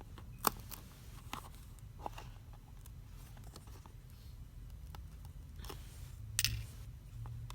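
A few small sharp clicks and taps of plastic parts and hand tools being handled while a smartphone is taken apart. The clearest comes about half a second in and another near the end, over a faint steady low hum.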